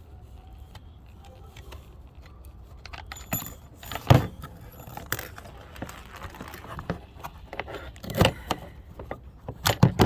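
Hand work on an old truck fog light and its metal bracket: irregular metallic clinks, rattles and knocks of parts and tools being handled. The loudest knock comes about four seconds in, another near eight seconds, and a quick run of clicks near the end.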